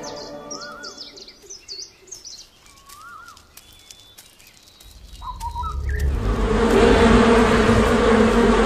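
Forest birdsong: quick high chirps, and a looping whistled call heard twice. About six seconds in, a loud rushing swell with a low steady drone rises and holds.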